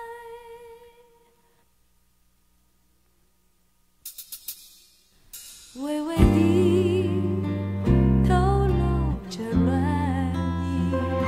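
Mandarin pop ballad recording with a female lead singer: a held note fades away into a couple of seconds of silence, a few quick plucked notes follow, and about six seconds in the full band comes back in with strong bass under the sung melody.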